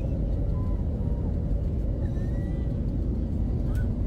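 Airliner cabin noise: a steady low rumble with a faint steady hum running through it.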